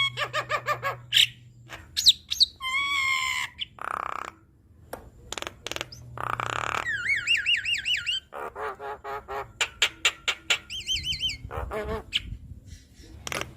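Javan myna singing a varied, busy song. Harsh rasping squawks alternate with clear whistles, runs of quick repeated rising whistles, and fast trills.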